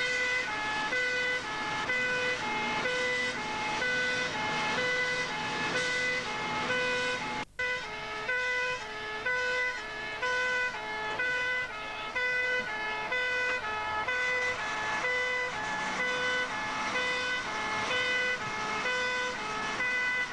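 Fire engine's two-tone siren sounding, a low note and a high note each held about half a second, alternating steadily, heard from inside the cab with the appliance's engine running beneath. It breaks off for an instant about seven seconds in.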